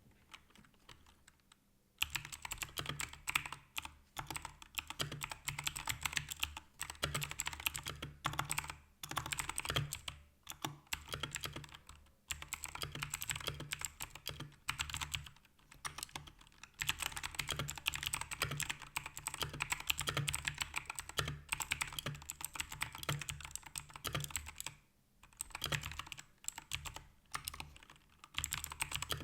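Fast, continuous typing on a mechanical keyboard with clicky blue switches, starting about two seconds in and broken by a few short pauses.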